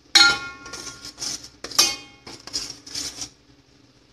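Steel spoon scraping and clanking against a stainless steel kadai as thick masala paste in oil is stirred, in a run of quick strokes. Two sharper clanks ring briefly, about a quarter second in and just under two seconds in. The stirring stops shortly before the end.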